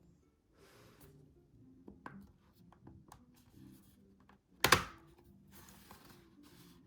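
Light clicks, taps and brief rustling of hands working on an opened laptop, with one sharp knock a little under five seconds in, over soft background music.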